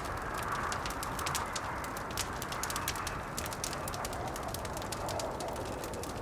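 Wood fire crackling with many small, sharp pops, over a howling blizzard wind whose pitch wavers and drops lower near the end.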